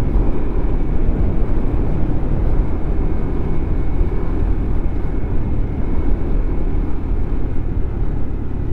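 Motorcycle riding noise: wind rushing over the rider's microphone with the engine running underneath, steady throughout.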